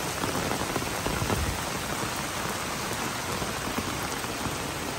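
Heavy rain falling steadily on a pond's surface: an even, unbroken hiss of drops hitting the water.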